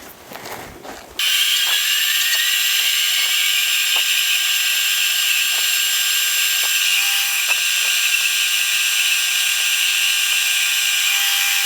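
An electric power tool motor switches on about a second in, spins up with a short rising whine, and runs steadily at high speed.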